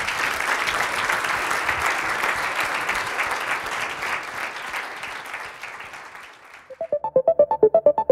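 Audience applauding, dying away about six and a half seconds in, then a short electronic jingle with a fast, even beat starts near the end.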